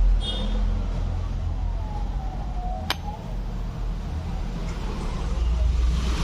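Steady low rumble of road traffic, with a faint wailing tone that dips and then rises in pitch in the middle, and a single sharp click about three seconds in.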